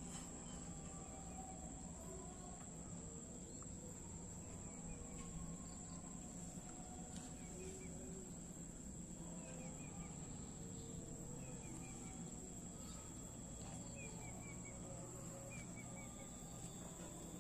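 A steady high insect drone with short runs of three or four quick chirps every second or two, over a low steady hum.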